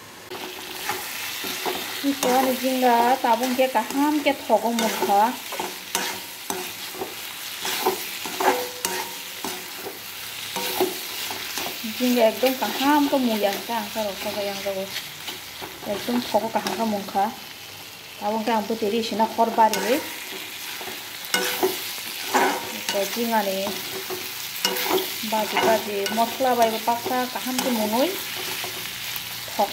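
Slotted metal spatula stirring and scraping food in a steel kadai, the scrapes squealing in wavering pitches, with clicks of the spatula against the pan over a steady frying sizzle.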